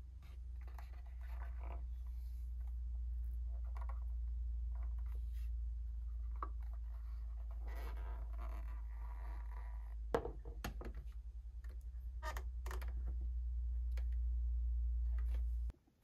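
A plastic toy figure diorama is handled and turned in the hands, making faint scrapes and light clicks, with one sharper click about ten seconds in. Beneath it runs a steady low hum that cuts off suddenly near the end.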